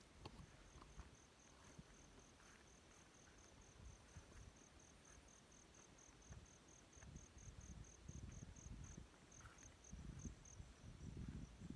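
Faint insect chirping: a steady run of short, high-pitched pulses, about four a second, that stops near the end. A low rumble comes and goes beneath it in the second half.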